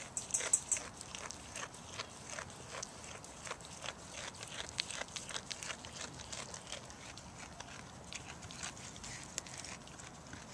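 Goat chewing and tearing at morning glory leaves and vines up close: an irregular run of crisp crunching clicks and leaf rustling, a few each second.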